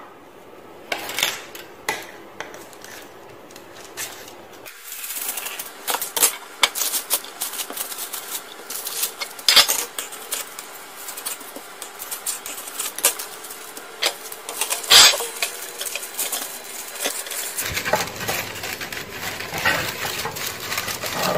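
Parchment paper being cut and fitted into two bread tins: crinkling paper with many scattered clicks and knocks against the tins.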